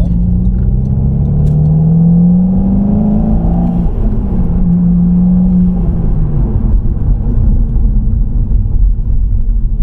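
Seat Leon Cupra Mk2's 2.0 TFSI turbocharged four-cylinder engine pulling under acceleration, its note rising steadily for about four seconds, then dropping suddenly and holding a steady note, over a strong low road rumble.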